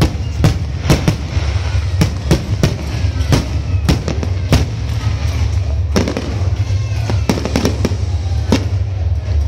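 Aerial fireworks display: shells bursting in quick, irregular succession, several bangs a second, over a steady low rumble.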